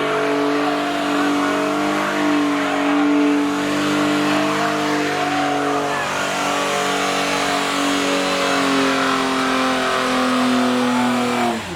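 Car engine held at high revs for about eleven seconds, its pitch wavering only slightly, with tyres spinning and squealing on pavement as in a burnout or donuts. The revs drop off sharply right at the end.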